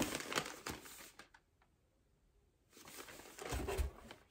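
Kraft-paper bag rustling and crinkling as it is handled, dying away for about a second and a half in the middle, then rustling again with a dull thump.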